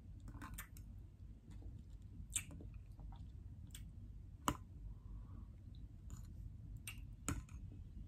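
Close-up chewing of soft kiwi fruit: quiet wet mouth sounds with a scatter of short, sharp clicks, the loudest about halfway through and another near the end.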